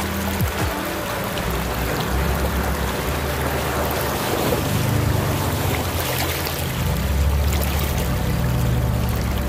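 Pickup truck engine running at low revs, a steady low hum with a rushing noise over it; the hum grows louder about seven seconds in.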